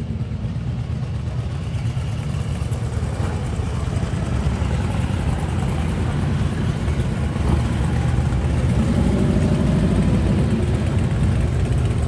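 A car driving past on the road, engine and tyres over a steady low traffic rumble that grows louder in the second half.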